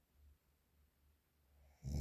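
Snoring: a quiet pause between snores with only faint breathing, then the next loud snore starts abruptly near the end.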